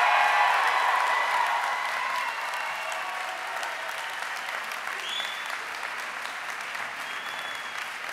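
Large crowd applauding and cheering in an auditorium, loud at first and gradually dying down. Two short high whistles near the middle and near the end.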